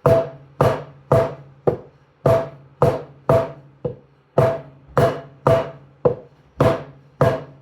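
Taiko drum struck steadily with bachi sticks, about two to three strokes a second, in an accent pattern of louder and softer strokes. Each stroke is left to ring, the sticks bouncing freely off the head.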